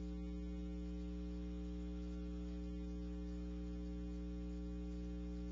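Steady electrical mains hum on the audio feed: a low, buzzy drone that does not change.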